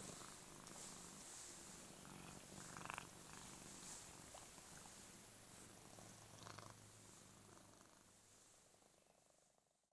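Russian Blue cat purring steadily and softly, with a couple of faint clicks; the purr fades out near the end.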